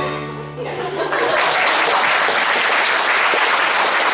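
Audience applauding, the clapping swelling in about a second in as the singers' last held note dies away, then going on steadily.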